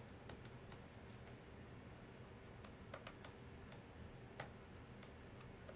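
Faint, irregular small clicks of a small screwdriver working the tiny screws of a white MacBook's RAM door in the battery compartment, metal tip ticking on the screws and the plastic case.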